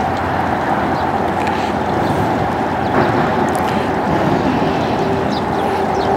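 A steady machine drone over a constant rushing noise, with a held hum that changes pitch partway through.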